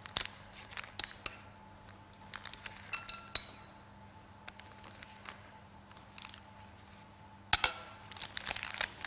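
Kitchen utensils clinking lightly against bowls and dishes, a few of the clinks ringing briefly. About seven and a half seconds in comes a louder handling noise, followed by a quick run of small rustles and clicks.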